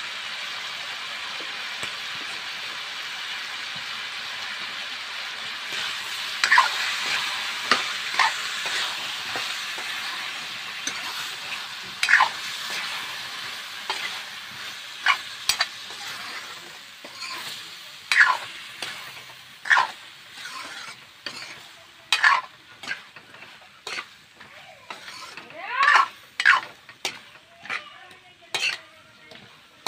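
Potatoes and onions with masala paste frying in a metal wok: a steady sizzle, then from about six seconds in, a metal ladle stirring and scraping against the pan in repeated strokes while the sizzle dies down.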